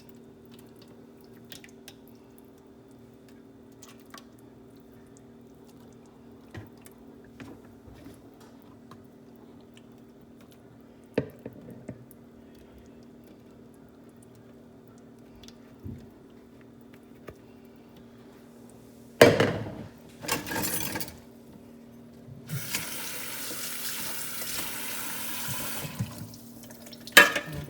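Kitchen sounds: a faint steady hum with scattered light clicks, then two loud clunks, then water running from a tap for about three and a half seconds near the end.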